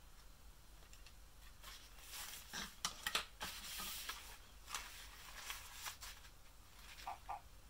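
Thin fabric of a child's doctor coat rustling and crinkling as it is handled, with a few light knocks. Near the end, the toy stethoscope's chest piece starts an electronic heartbeat: paired short beeps in a lub-dub rhythm.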